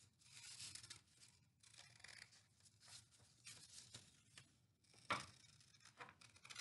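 Scissors cutting through folded white paper: a run of quiet snips, with one louder snip about five seconds in.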